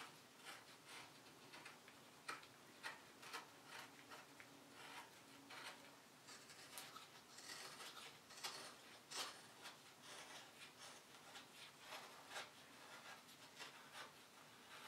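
Faint, short scraping cuts of a hand carving tool paring thin shavings from a small piece of wood, coming in irregular runs of about two strokes a second.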